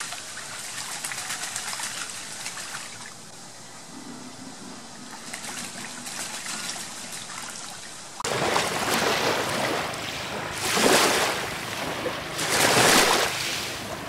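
A Muscovy duck bathing in a shallow puddle, splashing and trickling water. About eight seconds in this gives way abruptly to louder wind and surf on a beach, swelling in two big surges.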